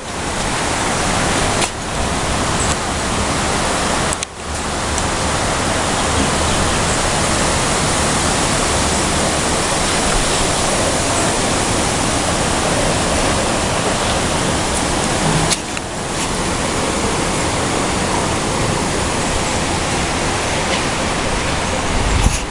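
Strong storm wind blowing as a loud, steady rush of noise that briefly drops away a few times.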